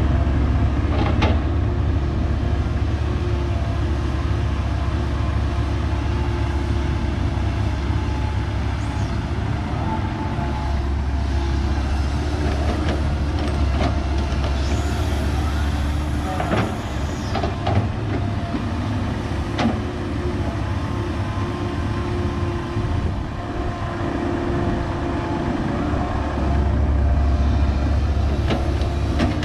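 Heavy diesel engine of a Komatsu excavator working, a steady low drone that swells for a few seconds about a third of the way in and again near the end, with a few sharp knocks.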